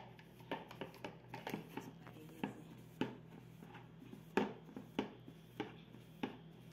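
Folded paper napkin rubbing olive oil around the inside of a plastic gelatin mould, with irregular soft scrapes and light knocks of plastic, a few louder ones in the second half.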